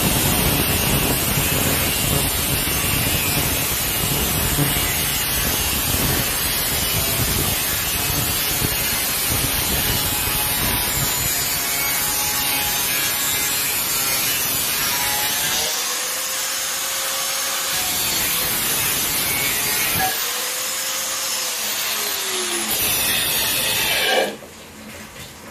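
Handheld angle grinder's cutting disc grinding through the metal skin of a polystyrene cool room panel, a harsh steady grind. Twice in the second half the grinding eases and the disc's whine dips and rises. Shortly before the end it stops abruptly.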